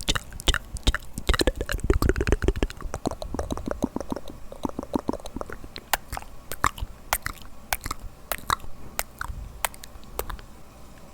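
ASMR mouth sounds close to the microphone: wet clicks and smacks of the tongue and lips, coming thick and fast for the first few seconds, then thinning out to scattered single clicks.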